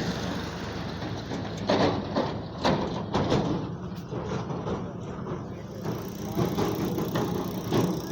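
Vehicle engine running steadily, with a low hum and scattered knocks and clicks over it.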